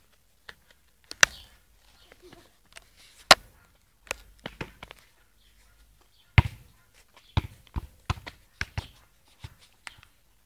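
A football being kicked and juggled, a string of sharp, irregular ball thumps that come in a quicker run in the second half.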